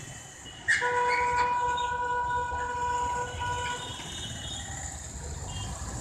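A vehicle horn sounding one steady held note for about three seconds, starting suddenly about a second in, over a constant low rumble of roadside traffic.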